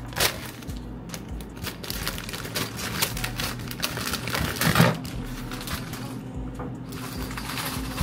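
Dry macaroni pasta rattling as it is poured into a pot: a dense patter of small clicks, with one louder knock about five seconds in.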